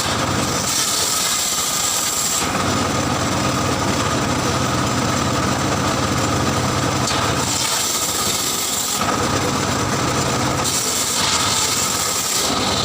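Circular saw cutting through timber, with a motor running steadily underneath. The blade's hiss rises three times as it goes through the wood: about a second in, around seven and a half seconds, and again near the end.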